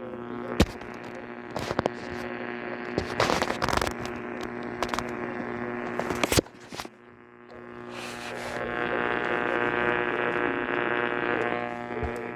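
A steady electrical buzzing hum on a radio broadcast, broken by repeated sharp crackles of static. The hum dips for about a second just past the middle and then swells back.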